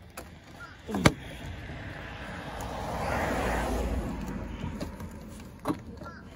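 Sharp plastic snap about a second in as a plastic cover is pried off an LED headlight bulb unit, with a smaller click near the end. Between them a rush of noise swells and fades over a few seconds.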